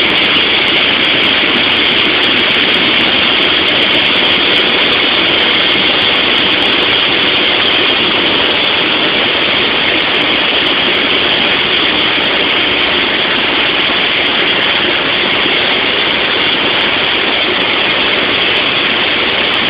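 Steady drone of a light aircraft in flight, heard inside the cabin: engine and airflow noise holding constant throughout.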